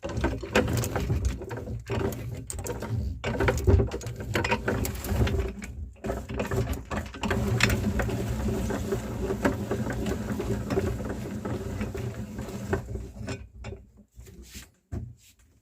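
Meat grinder running with a steady hum and irregular crunching and clicking as material goes through it. It stops about 13 seconds in, followed by a few brief clicks.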